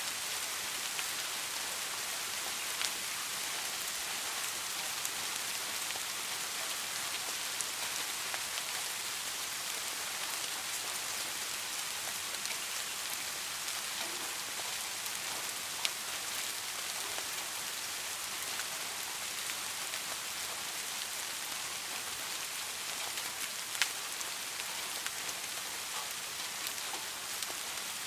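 Steady rain falling: an even hiss, with a few sharper single drop ticks standing out now and then.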